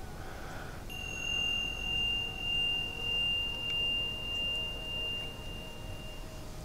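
A single high metal chime tone struck about a second in, ringing for about five seconds with a slow wavering pulse in its loudness before fading out.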